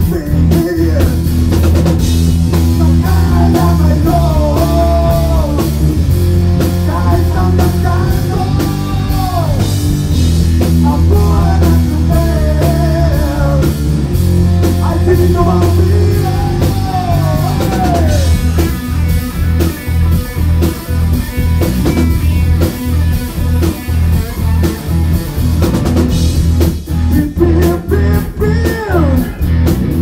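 Live rock band playing loudly: a male singer over electric guitar and a drum kit. The vocals drop out for a long stretch in the second half while the band plays on.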